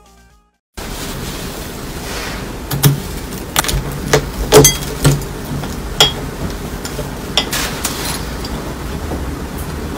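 A knife cutting down into a crumble-topped blueberry muffin, with scattered crunches and sharp ringing clinks of the metal blade against the ceramic plate. The loudest clink comes about four and a half seconds in, over a steady background hiss.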